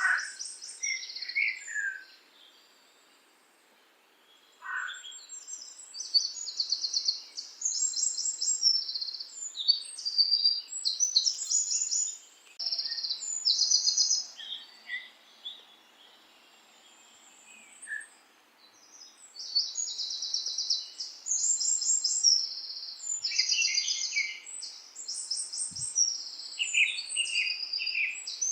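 Songbirds chirping and singing in clusters of rapid, high-pitched repeated notes, pausing briefly about two seconds in and again around the middle.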